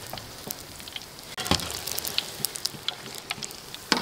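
Hot oil sizzling and crackling in a wok of frying tofu, with two sharp knocks, about a second and a half in and near the end.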